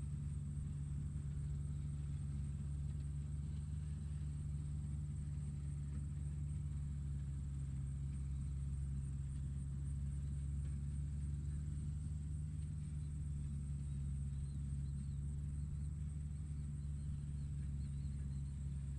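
Tractor engine running steadily at a constant speed, a low even drone with no change in pitch or load.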